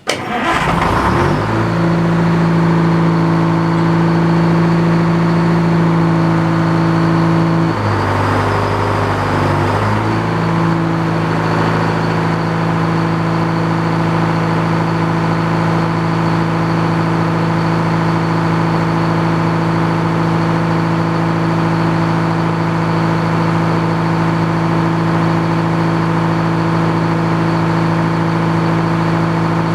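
The engine powering an old Frick sawmill starting up and running at a steady speed. Its pitch drops for about two seconds some eight seconds in, then recovers and holds steady.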